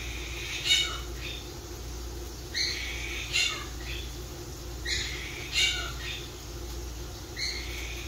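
Pet parrot calling in a repeated two-part pattern, about every two and a half seconds: a short high note followed by a squawk that slides down in pitch at its end.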